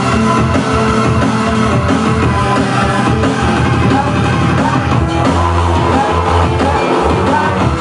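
Loud live music with drums, played by a band with a DJ.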